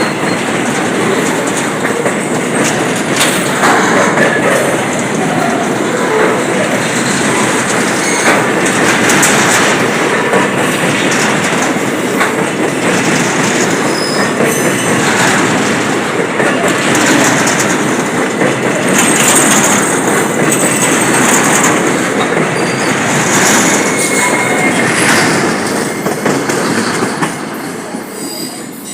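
Train rolling by on the rails, its wheels clattering over rail joints, with a few brief high wheel squeals. The sound drops away near the end.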